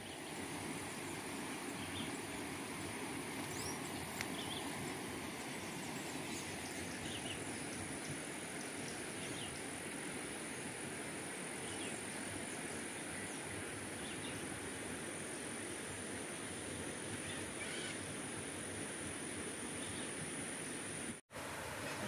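Countryside ambience: a constant high-pitched insect drone and scattered faint bird chirps over a steady background hiss, cutting out for a moment near the end.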